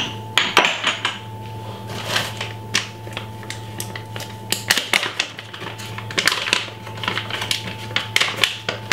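Irregular clicks and light taps of items being handled on a kitchen counter, over a steady low hum.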